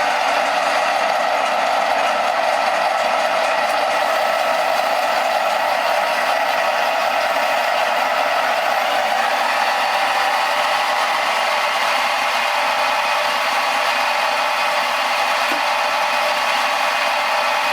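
Hydrograf 8 RC-model sound unit playing a steady, rattling engine running sound through a small loudspeaker, thin and without bass.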